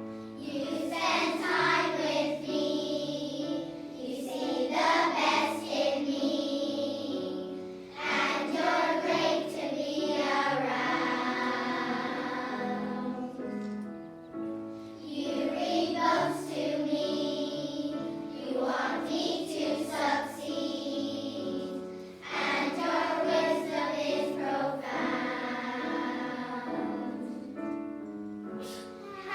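A choir of young girls singing a song together in unison, with a piano accompaniment.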